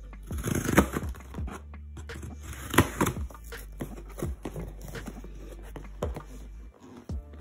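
Scissors slitting the packing tape on a cardboard shipping box, and the cardboard flaps being pulled open, with tearing, scraping and rustling that peaks about a second in and again about three seconds in.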